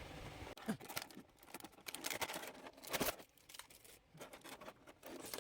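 Plastic figure packaging and parts being handled: a scattered run of light clicks, rustles and crinkles.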